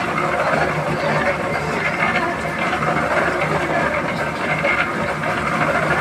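Concrete mixer's engine running steadily during a concrete pour, a constant low drone.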